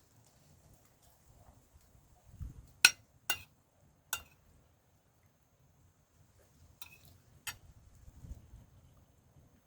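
Eating utensils clinking against dishes: about five sharp clinks spread over several seconds, the loudest around three seconds in, with quiet stretches between.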